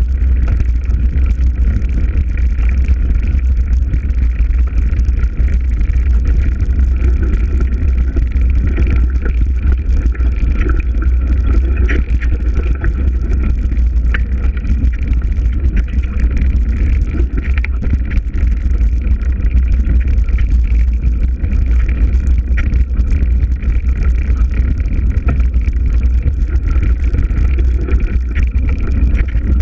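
Breeze blowing through trees and buffeting the microphone: a steady, loud low rumble of wind with a rustling hiss above it.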